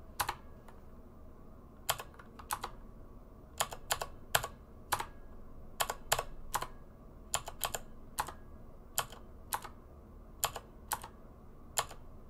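Computer keyboard keystrokes: sharp single clicks and quick pairs, irregular and sparse, with short pauses between runs.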